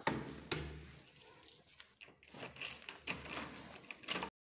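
Keys jangling on a ring and clicking in a door lock while the door handle is worked: a run of sharp clicks and metallic rattles that cuts off suddenly near the end.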